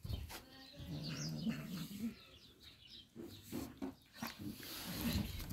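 Cats eating chunks of salami: a low, drawn-out cat vocalisation that wavers in pitch, over short chewing clicks, with a few faint high bird chirps.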